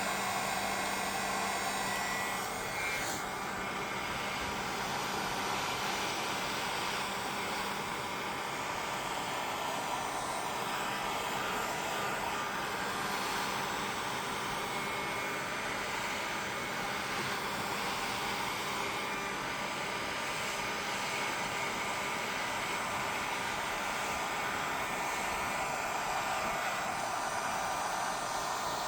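Electric hot-air blower (heat gun or hair dryer) running steadily, blowing on white epoxy to spread it into ocean-wave lacing.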